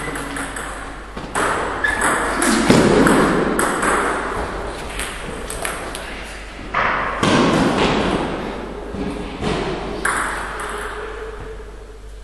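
Table tennis ball clicking sharply off bats and the table in a series of quick, irregular hits, echoing in a large hall, with voices at times.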